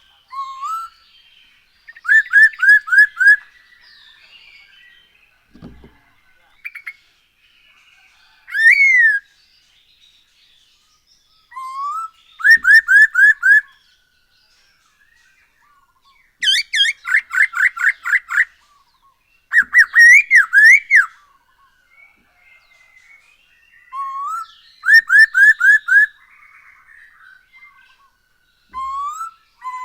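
Masked laughingthrush (poksay Hongkong) calling in loud bursts, roughly every four seconds. Each burst opens with a short rising note and runs into a quick series of four to eight ringing notes, with faint chatter between the bursts.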